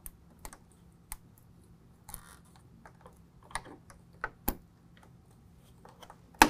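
Light, irregular clicks and taps of a hand tool working a plastic wire-harness fastener loose, with one sharper click near the end.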